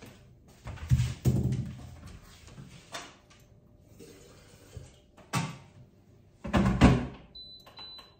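Thuds and knocks of kitchen work: a cupboard door shutting and a kettle and packets being handled and set down on the worktop. The loudest come about a second in and again near the end. Just before the end comes a high electronic beep about a second long.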